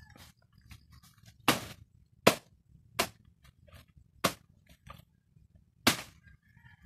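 Five sharp chopping strikes at uneven intervals, a bolo (machete) hacking at soft, fleshy banana plant stalks, with lighter rustling and cracking of leaves between them.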